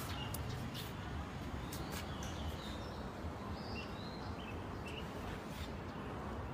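Quiet background: a low steady rumble with a few short, faint bird chirps scattered through it.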